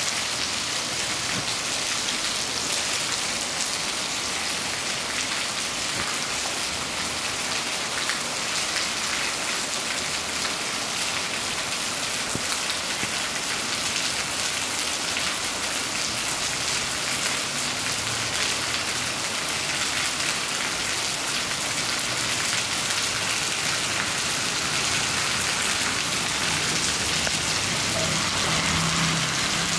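Steady heavy rain falling on a wet paved street, a continuous hiss of falling rain and splashing drops.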